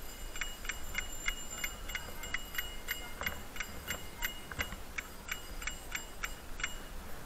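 Bicycle ticking steadily as it rolls, about three light clicks a second, which stop near the end.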